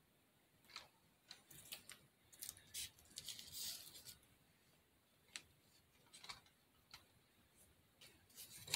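Faint, scattered light clicks and rustles of tiny decorative carrots being handled and set on a foam fake cake, with a denser stretch of rustling about two to four seconds in.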